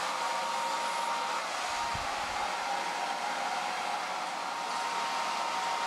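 Hand-held hair dryer with a diffuser attachment blowing steadily: an even rush of air with a faint steady motor whine.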